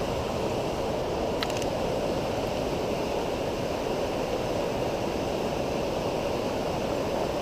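Steady rush of a high creek's flowing water, an even noise with no let-up.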